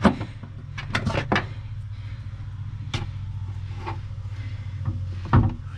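Sharp clicks and knocks of a red battery cable and its lug being handled and fitted onto a marine battery's terminal: a cluster in the first second and a half, one about halfway through and a louder knock near the end. A steady low hum runs underneath.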